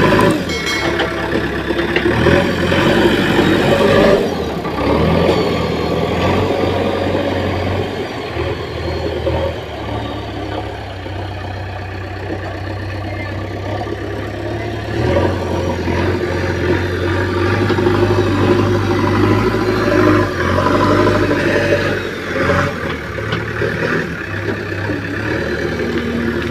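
Diesel engine of a heavy earthmoving machine running under varying load, its level and pitch shifting several times as it works, with a few brief knocks.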